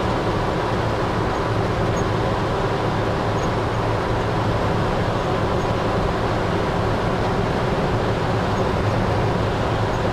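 1948 Chevrolet 3100 pickup driving steadily at cruising speed, its inline six-cylinder engine running with a constant hum under tyre and wind noise.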